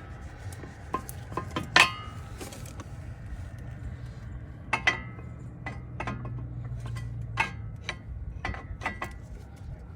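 Metal brake pads and their spring clips clinking and clicking against the caliper bracket as they are handled and fitted, in scattered sharp clinks about a dozen times.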